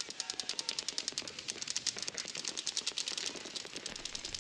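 Paintball markers firing rapid streams of shots from several players at once, a fast rattle of sharp pops many times a second.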